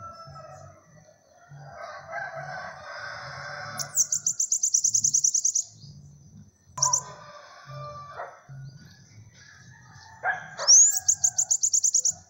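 Caged bananaquit (sibite) singing: two bursts of fast, high-pitched repeated notes, each about a second and a half long, opening with a quick upward sweep, the first about four seconds in and the second near the end.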